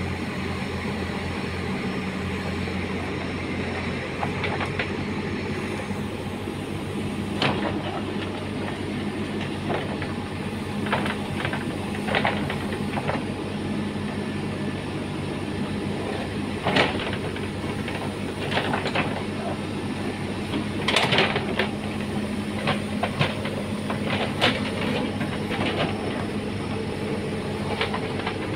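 Manitou TLB 844 X4 backhoe loader's diesel engine running steadily under hydraulic load, its note shifting about four seconds in. Irregular metallic clanks and knocks from the backhoe bucket and boom come on top as it digs and scrapes through mud and stones.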